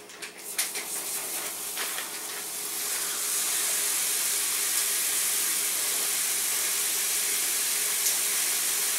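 Ground venison sizzling as it hits a screaming-hot frying pan, with a few sharp crackles in the first two seconds before it settles into a steady, loud sizzle.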